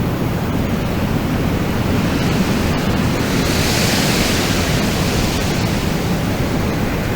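Wind blowing with a steady low rumble, and a gust swelling into a hiss about halfway through before easing off.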